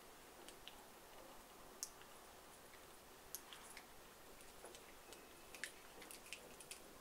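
Faint, irregular plastic clicks and taps, about a dozen, from the small battery boxes of LED lanyards being handled by hand. The sharpest clicks come about two seconds in and just past the middle, over a low steady hiss.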